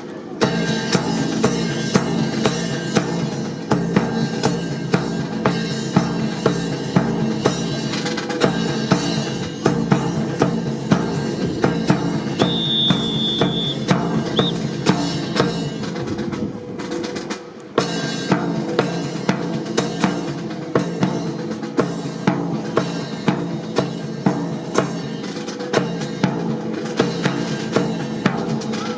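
Drum-led music with a steady, regular beat, accompanying a rifle drill display. A brief high steady tone sounds about halfway through.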